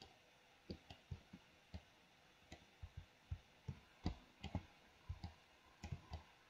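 Faint, irregular clicking from computer controls while sculpting, about twenty short clicks scattered unevenly, with pauses between.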